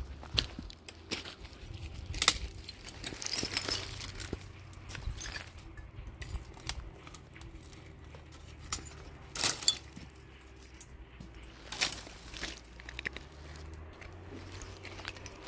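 Irregular clicks, knocks and light rustling of small things being handled, with a few sharper knocks spread through and a faint steady low hum underneath.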